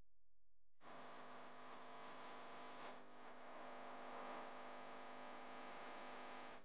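Faint steady electrical hum with hiss, starting about a second in.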